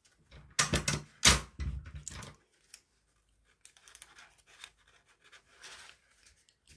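Sticky tape pulled and torn off the roll in a few quick, loud rips, then faint rustling of paper as the tape is pressed onto a small paper box.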